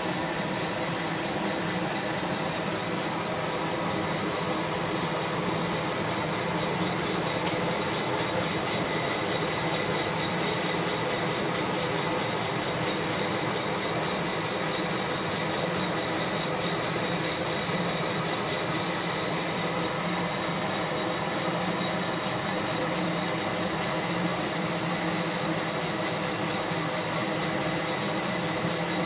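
Fracino Roastilino hot-air coffee roaster running: a steady blower rush with a faint motor hum, as the coffee beans are blown around and tumble in the glass roasting chamber.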